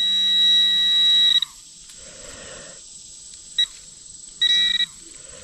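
Handheld metal-detecting pinpointer sounding a steady high beep for about two seconds as it sits over a metal target, then a quick blip and a half-second beep as it is swept over the spot again. Soft rustling of dirt between the beeps.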